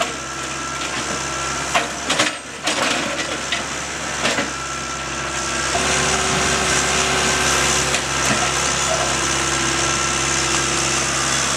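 An engine running steadily with a constant hum, its pitch stepping up about six seconds in, with a few sharp knocks in the first few seconds.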